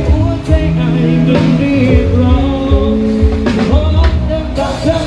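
Loud band music: a singer over held keyboard or guitar notes and drum-kit hits.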